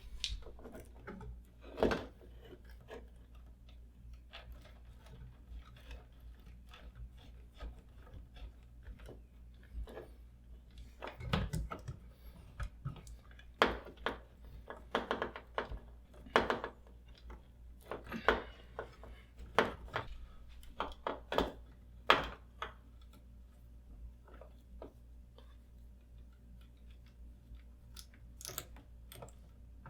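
Irregular clicks, knocks and crunchy scraping from stiff electrical wires and a smart switch being handled and pushed into a wall switch box. The handling noise is busiest in the middle and thins out near the end.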